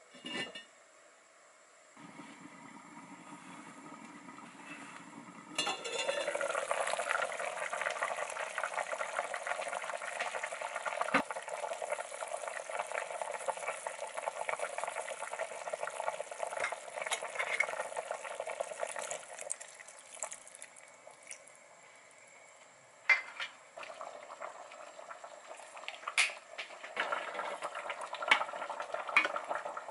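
A lid clinks onto an enamel pot, then, a few seconds in, a pork rib and potato stew simmers with a steady bubbling in the open pot. Now and then a utensil or tray clinks against the pot.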